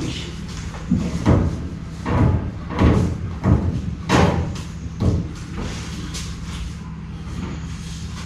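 A run of irregular knocks and thumps, about seven in the first five seconds and fewer after, from work on the underside of a VW T4 van on a lift, over a steady low hum.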